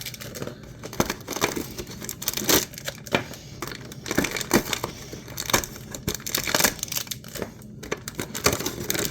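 Plastic toy packaging being crinkled, crushed and torn open by hand, a run of irregular crackles and scratches.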